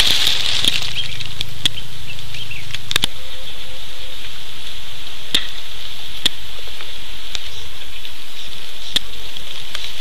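A steady high-pitched drone runs throughout, with scattered sharp clicks and crackles at irregular intervals.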